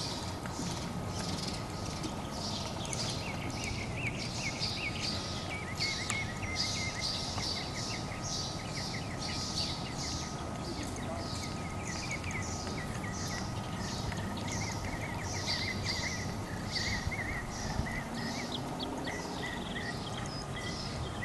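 Outdoor ambience of steady chirping: a high call repeats about every two-thirds of a second, with quicker, lower twittering through it, over a low steady rumble.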